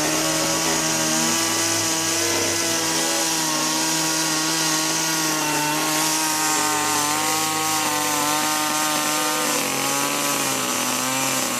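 Echo two-stroke chainsaw engine running at a steady speed, its pitch dropping a little about ten seconds in. The saw has just been reassembled after an overhaul with one small internal part left out.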